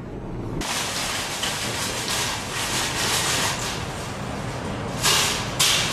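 Train horn sounded from a vehicle as a prank, heard as a harsh rush of noise. It starts suddenly about half a second in and swells louder twice near the end.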